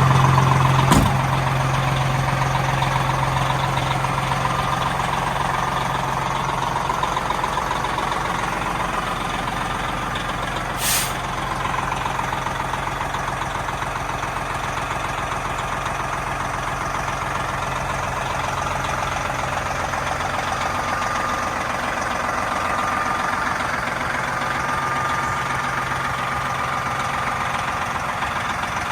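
Peterbilt 378 semi truck's diesel engine idling steadily, with a sharp click about a second in and a brief hiss of air about eleven seconds in.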